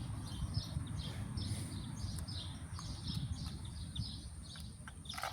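Small birds chirping in quick repeated notes, a few a second, over a steady low rumble.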